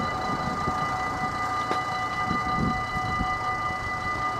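Level crossing warning bell ringing steadily while the barriers are down, with irregular low rumbling and thumps underneath.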